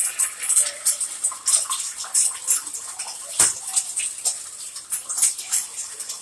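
Eggs frying in hot oil in a skillet on high heat: a steady sizzle with fast crackling pops, and one sharp knock about three and a half seconds in.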